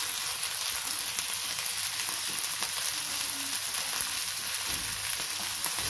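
Turkey berries, shallots, dried red chillies and freshly added curry leaves frying in hot oil in a wok: a steady sizzle.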